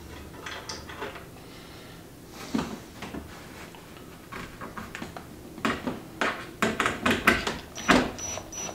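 Scattered clicks and light knocks of a cordless drill and screws being handled against the wooden planter box, as a screw is set on the driver bit. The clicks come quicker in the last few seconds, and no drill motor runs.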